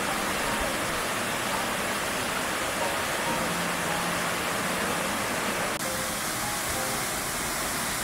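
Waterfall water rushing, a steady even noise, whose sound changes abruptly about six seconds in.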